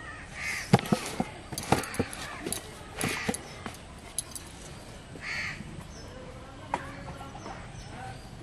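Sharp clinks and knocks of a metal bowl and plastic jar being handled, thickest in the first two seconds, with a bird's harsh call three times a couple of seconds apart.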